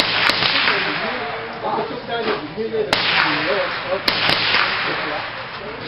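Gunshots on a shooting range: about five sharp reports, two close together at the start, one about three seconds in and two near four seconds, each trailing off in echo.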